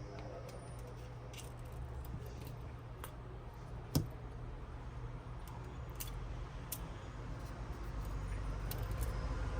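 A steady low background rumble with scattered small clicks and taps, and one sharper click about four seconds in.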